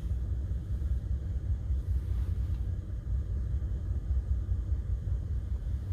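Car cabin rumble while driving: a steady low hum of engine and road noise heard from inside the car.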